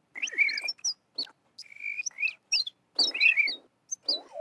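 Designed bird-call ambience of sampled bird chirps, scattered at random by Sound Particles: about five short bursts of quick, gliding chirps and warbles, with dead silence between them.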